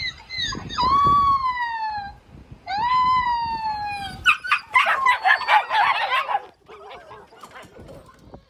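Recorded husky puppies howling, played through a smartphone speaker: two long howls, each sliding down in pitch. About four seconds in comes a burst of many overlapping puppy yelps and cries that lasts about two seconds.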